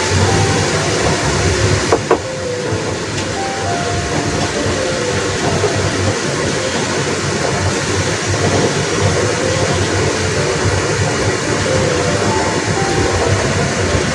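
Steady rushing sound of a covered pan of beef and vegetables simmering and sizzling on a gas stove after a splash of water, with one sharp click about two seconds in.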